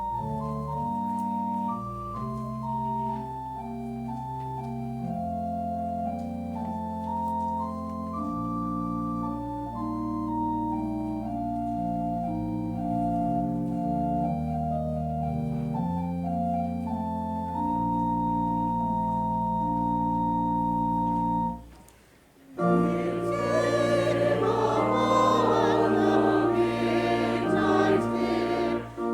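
Church organ playing slow, held chords. After a brief break near the end, voices join the organ in singing.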